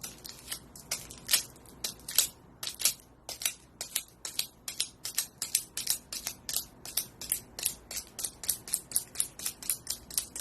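Rapid back-and-forth scrubbing strokes of something rubbed hard over a surface to clean it. The strokes are uneven at first, then settle into a quick steady rhythm of about three a second.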